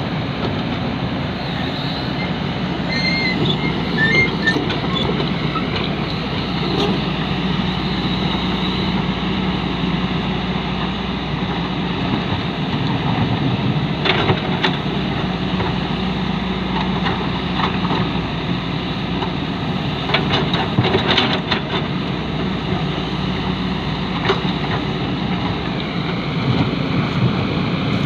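Excavator diesel engine running steadily, with a few sharp metallic knocks and clanks.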